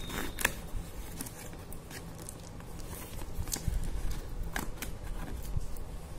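Small scissors snipping through plastic packing tape on a cardboard shipping box, giving scattered sharp clicks and crackles of tape and cardboard.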